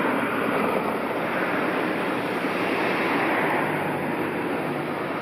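Steady hiss of road traffic: car tyres on the street as cars drive past, swelling and easing slightly.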